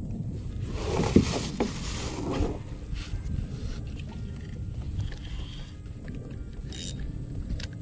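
Steady low rumble of wind on the microphone, with a stretch of rustling handling noise about a second in, as a fishing rod and reel are handled.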